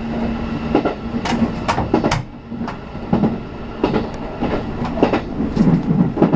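JR Central 313 series electric train running, heard from inside the carriage: wheels clicking over rail joints at irregular intervals over a steady low hum.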